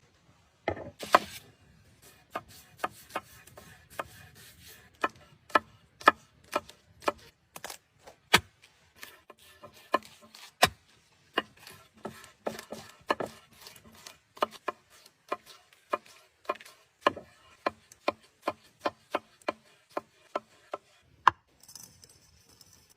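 Knife chopping on a wooden board: a long run of sharp, irregular chops, about two a second.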